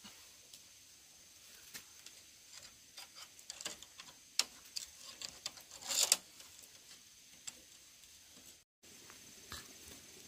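Irregular light taps and clicks, with a louder cluster about six seconds in; the sound cuts out completely for a moment near the end.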